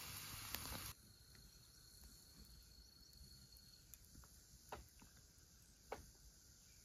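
A steady hiss cuts off suddenly about a second in, leaving quiet forest background with a faint, steady high insect trill that fades out partway, and two soft clicks near the end.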